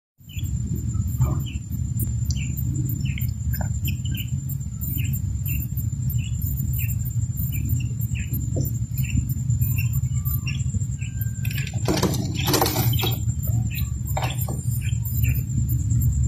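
Quail chick peeping in short, high cheeps, about two a second, over a steady low hum and a faint high whine. A brief rustling noise about twelve seconds in.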